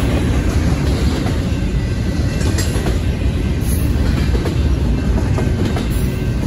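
Double-stack intermodal freight cars rolling past at a grade crossing: a steady, loud rumble of steel wheels on rail, with the clickety-clack of wheels over the rail joints.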